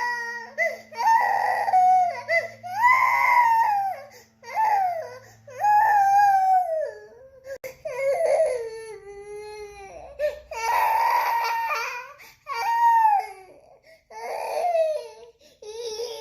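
A sleepy toddler crying in a string of drawn-out wails, broken by short catches of breath.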